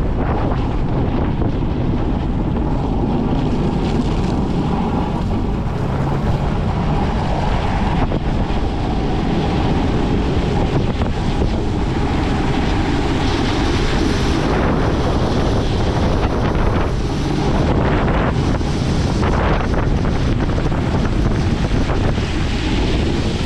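Strong wind buffeting the microphone over the steady low running of a Cummins diesel plow truck pushing snow.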